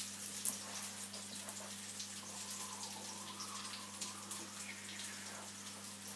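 Steady hiss of room noise with a low electrical hum underneath and faint scattered ticks.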